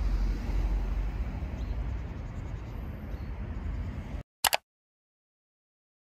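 Wind rumbling on the microphone with outdoor ambience. It cuts off abruptly about four seconds in, followed by two quick clicks and then silence.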